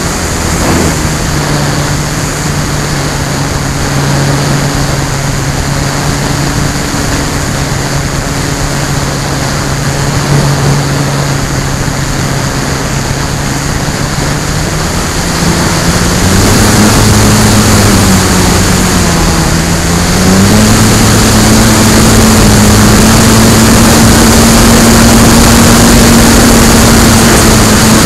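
Electric motor and propeller of an FMS Bf-109 RC warbird, heard from a camera on the model itself over a rush of wind: a steady drone whose pitch climbs a little over halfway through, dips briefly, then settles higher and louder as the throttle is opened.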